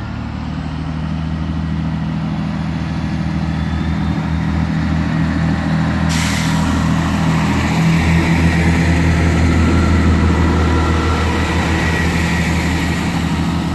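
Class 165 Networker Turbo diesel multiple unit departing, its underfloor diesel engines pulling away with a steady low throb that grows louder. A sudden hiss joins about six seconds in.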